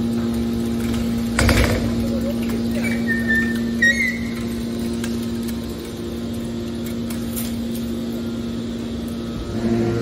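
Hydraulic scrap metal baler running with a steady hum while its ram pushes a compacted bale of metal scrap out of the discharge door. There is a single clank about a second and a half in and a brief squeal a few seconds in.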